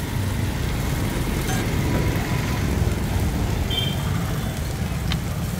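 Chowmein noodles sizzling on a large flat iron griddle (tawa), a steady hiss over a constant low rumble.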